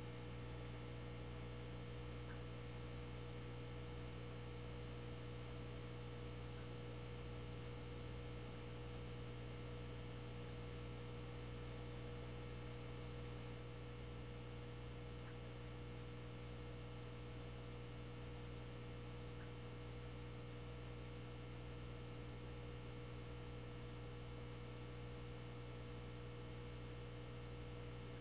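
Steady low electrical hum with a faint high whine above it, unchanging throughout.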